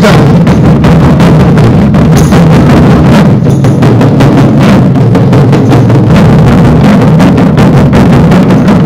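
Taiko drums beaten in a fast, dense stream of loud strokes, with sharp sticking clicks among them.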